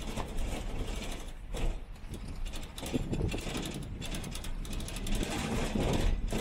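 Car on the move, with rapid irregular clicking and rattling over a steady low road rumble.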